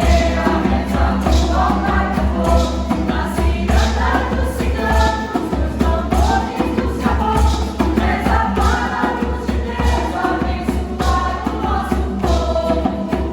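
A choir singing a song with instrumental accompaniment, over a steady bass and a beat about once a second.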